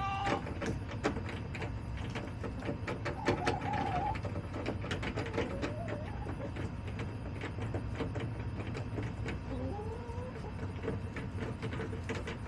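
Backyard hens giving a few short, rising calls now and then, amid many sharp clicks and taps, over a steady low hum.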